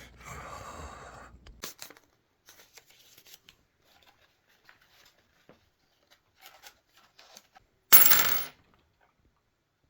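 Small handling sounds: a rustle at first, then scattered faint clicks, and one brief loud clatter about eight seconds in.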